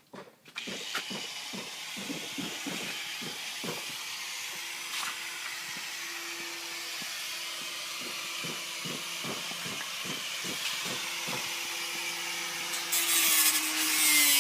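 A power tool runs steadily with a held hum, and light rapid knocks sound over it in the first few seconds. It gets louder near the end, where its pitch falls.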